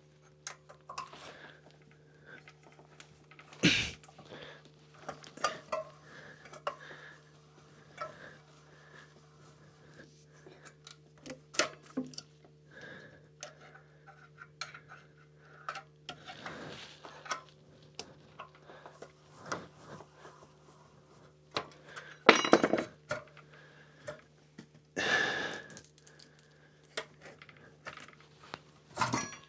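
Metal hand tools and wheel parts clinking and knocking during a trike wheel change: scattered irregular clicks and clanks, louder about four seconds in and twice near the end, over a steady low hum.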